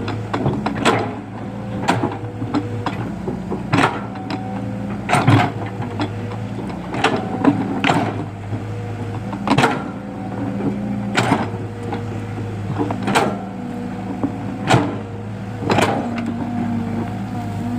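Excavator engine running steadily, with a fainter whine that shifts in pitch and about a dozen sharp knocks or clanks at irregular intervals.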